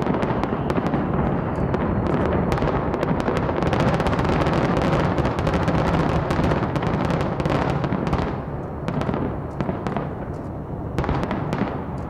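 Dense barrage of fireworks and explosive blasts: rapid sharp pops and crackles over a continuous rumble. It thins out about eight seconds in, then a fresh flurry of pops comes near the end.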